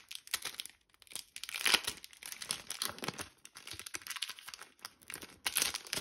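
Pokémon Celebrations booster pack's foil wrapper being torn open and crinkled by hand, crackling in irregular bursts, loudest a little under two seconds in.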